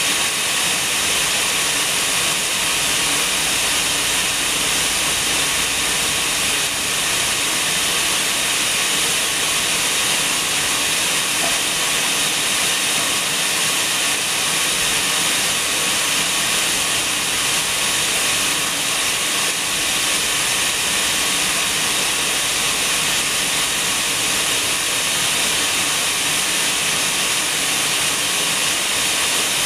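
A steady, even hiss.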